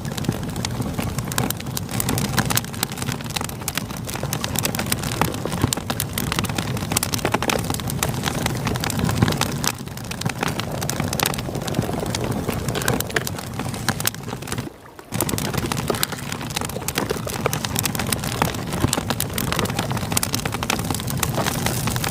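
Campfire crackling and popping over the steady rush of flowing river water. The whole mix briefly drops out for a moment about fifteen seconds in.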